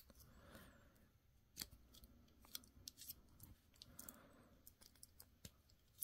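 Faint, scattered metallic clicks of a Victorinox Yeoman Swiss Army knife's tools being opened, closed and handled, the blades and scissors snapping against their springs.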